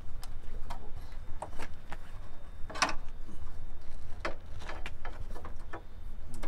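Scattered clicks and knocks of the notching saw unit and its hoses being handled and fitted onto the harvester arm's mounting bracket, the loudest knock about three seconds in, over a low steady rumble.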